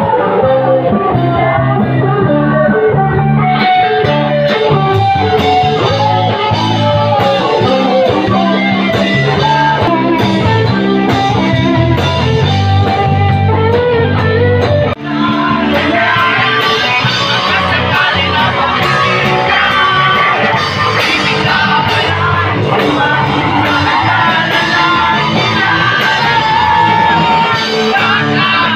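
Live band music: a man singing into a microphone over guitar. About halfway through it drops out for an instant, then music with singing carries on.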